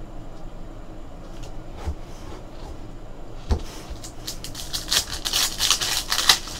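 Trading cards being handled by hand: a few light clicks, a soft knock about halfway, then a quick run of rustling and flicking near the end as cards are slid through.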